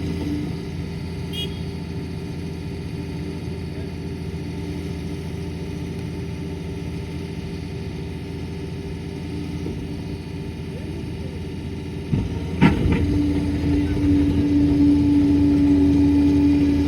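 Liebherr 746 crawler dozer's diesel engine running steadily. About twelve seconds in there is a sharp clank, then the sound grows louder and a steady hum comes in and holds.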